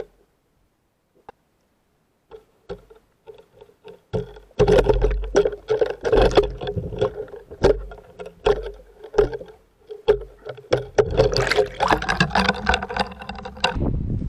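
Underwater sound picked up by a submerged camera. Scattered clicks at first, then from about four and a half seconds in a dense run of knocks and crackles over a low rumble and a steady hum, with a rushing hiss coming in near the end.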